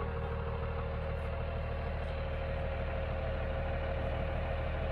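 Second-generation Dodge Ram's 12-valve Cummins inline-six diesel idling steadily as the truck creeps up onto a trailer.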